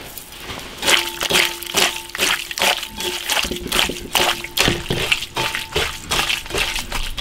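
Bare hands squeezing and mixing cubed raw lamb with chili powder and spices in a ceramic bowl: wet squelching in repeated strokes, about two or three a second, starting about a second in.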